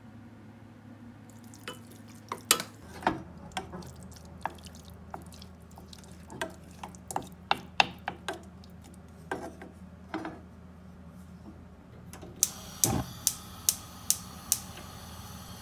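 A wooden spoon stirring a thick mixture in a stainless steel saucepan, knocking and scraping against the pot in irregular clicks. Near the end, six evenly spaced ticks, about two a second, like a gas hob's igniter clicking.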